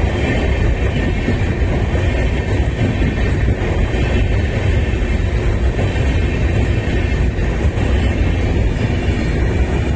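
Indian Railways LHB AC chair-car coaches of an express train passing close by at speed: a steady, loud rumble of wheels running over the rails.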